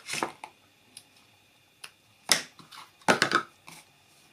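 Gingham ribbon being pulled off a plastic spool and handled, with a brief rustle at the start, a sharp snap about two seconds in and a quick cluster of clicks a second later.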